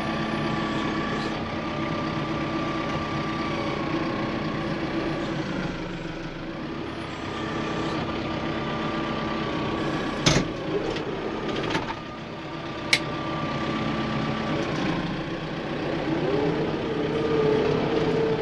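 Vehicle engine running steadily, with a few sharp clicks about halfway through. Near the end the engine speeds up, its pitch rising and then holding higher.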